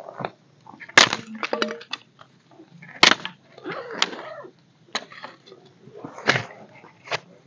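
Dry wooden sticks snapping as they are broken by hand: a series of about six sharp cracks, roughly one a second, with rustling in between.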